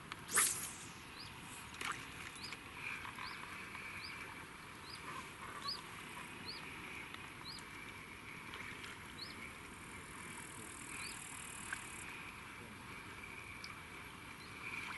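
Spinning rod cast: a sharp swish about half a second in, then the spinning reel turning in stretches as the line is wound in.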